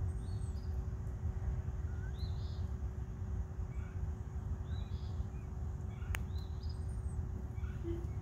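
Outdoor background with a steady low rumble and a faint steady hum, over which small birds chirp briefly every second or so; a single sharp click about six seconds in.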